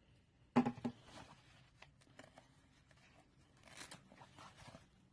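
Handling noise as a charging cable and phone are moved about: a brief loud knock about half a second in, then scattered small clicks and soft rustling, with a short swish near the end.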